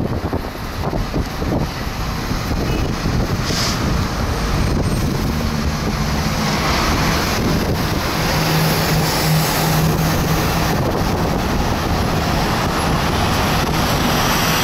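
Road traffic under a concrete overpass: a steady rush of passing cars, with a low engine hum that builds from about four seconds in and is strongest around the middle.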